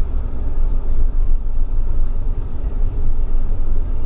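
Steady low rumble of a moving vehicle, heard from inside the cabin: road and engine noise, with no distinct events.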